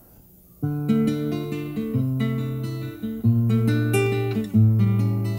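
Nylon-string classical guitar playing a song introduction: strummed chords over moving bass notes, starting suddenly about half a second in.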